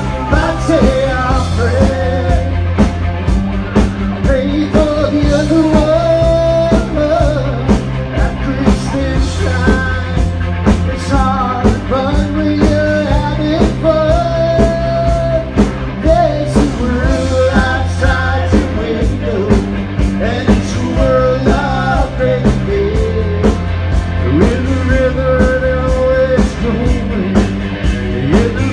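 A rock band playing a Christmas song: drums keeping a steady beat under bass and electric guitar, with a melody line carried over them.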